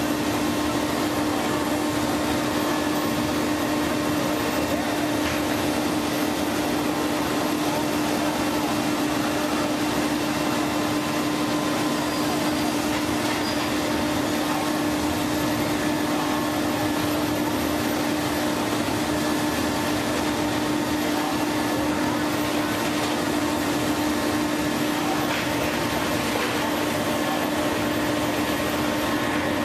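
Heavy diesel machinery running steadily at constant speed: a continuous hum with one strong steady tone over a broad rushing noise, never changing in pitch or level.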